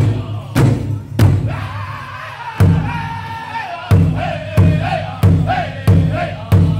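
Powwow drum group: several men striking a large shared drum in unison at a steady beat of about one and a half strokes a second, with high-pitched group singing over it. The beat drops out briefly about a second in while a note is held, then comes back.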